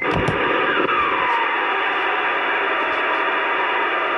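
CB radio static from the receiver's speaker: a steady, band-limited hiss that comes on suddenly as the squelch opens, with a faint falling whistle about a second in.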